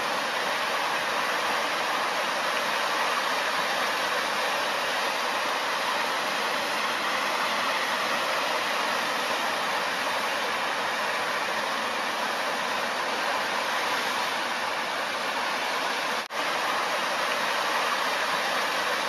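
A fountain's tall water jet splashing down into a pond: a steady, even rush of falling water, broken by a split-second dropout about three seconds before the end.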